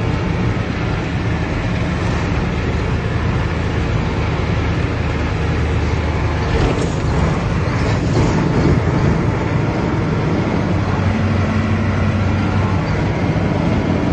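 Engine and road noise of a vehicle driving, heard from inside the cab: a steady low hum, with a few brief knocks or rattles about seven to nine seconds in.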